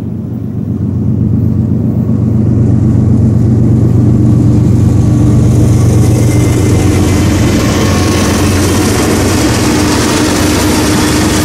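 BNSF diesel locomotives approaching and passing at speed. A deep, steady engine drone grows louder over the first few seconds, and the rush of wheels on rail rises near the end as the lead units go by.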